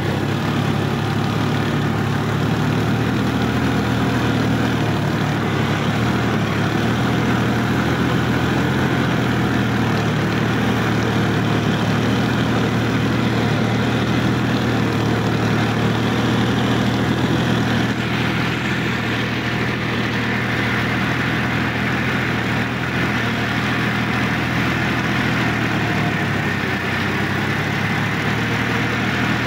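Sonalika DI-50 RX tractor's diesel engine running steadily as the tractor drives, with a slight drop in pitch near the end.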